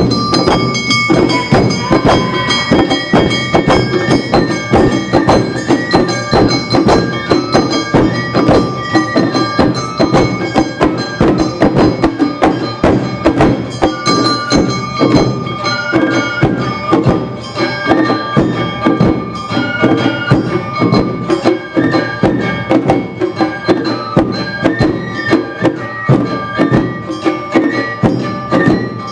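Awa Odori festival band music: a flute melody with held high notes over a dense, steady beat of drums and other percussion strikes.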